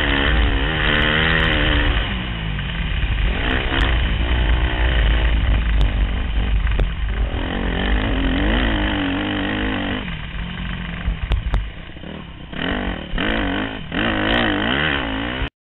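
Yamaha YZ motocross bike engine being ridden hard, revs rising and falling with the throttle and gear changes, heard from a helmet camera with a heavy low rumble; quick rev sweeps near the end, then it cuts off suddenly.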